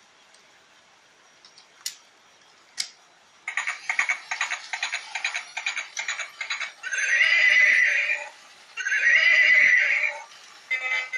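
Recorded horse sound effect from a toy wagon: a fast clip-clop of galloping hooves, followed by two long whinnies, then more hoofbeats.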